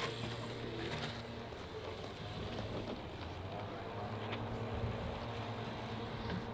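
A low, steady engine hum with small shifts in pitch.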